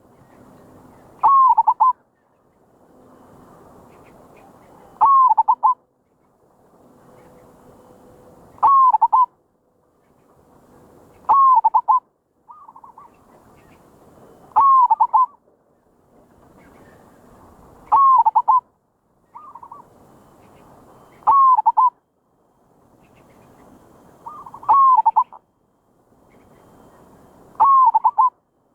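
Zebra dove (merbok) cooing its lure call: a short, quick run of notes repeated about every three to four seconds, nine calls in all.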